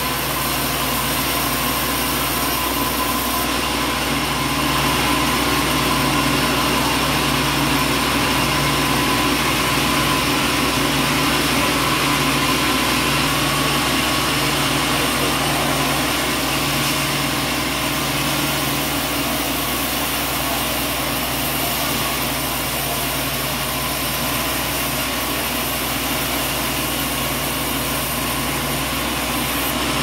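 Large band sawmill running steadily, its blade and drive humming at a constant pitch as a timber slab is fed through the cut.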